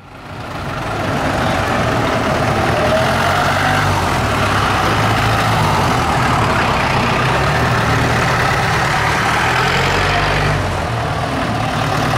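Diesel engines of Mahindra jeeps idling close by, a steady low rumble that fades in over the first second.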